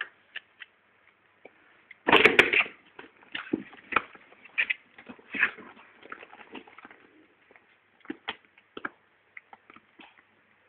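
Cardboard box being scratched, scraped and tapped as a cat plays with a ruler, with a louder scuffle about two seconds in.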